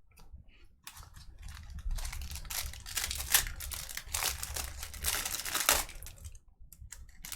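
Crinkling of a plastic trading card pack wrapper as it is handled and opened, an irregular crackle that grows busier about two seconds in and dies away near the end.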